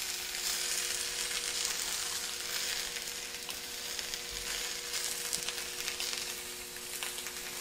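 Eggs and slices of Canadian bacon frying in butter on a flat-top griddle: a steady sizzling hiss with light, scattered crackles.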